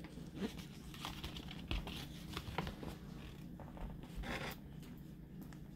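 Faint rustling and crinkling of paper sheets and plastic packaging being handled, with a slightly louder rustle about four seconds in.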